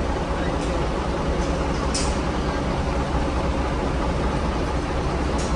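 Large coach's diesel engine running, a steady low rumble. Short faint hisses come about two seconds in and again near the end.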